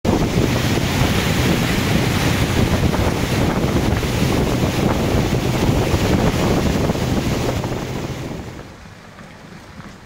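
A motorboat under way: wind buffeting the microphone and water rushing past the hull in a loud, steady noise, which dies down to a faint hiss about eight and a half seconds in.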